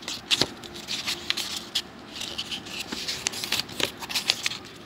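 Pages of a paperback book being turned and handled: a run of light, quick paper rustles and flicks.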